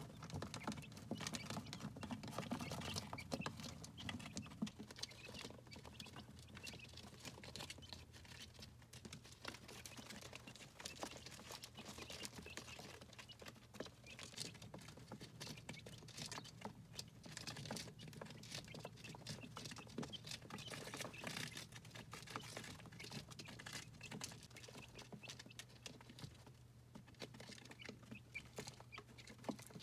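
Quail chicks pecking at feed crumbles and at the plastic feeder and water trays: rapid, irregular light taps and clicks, over a low steady hum.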